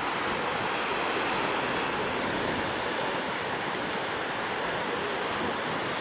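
Steady rush of ocean surf below the sea cliffs, mixed with wind.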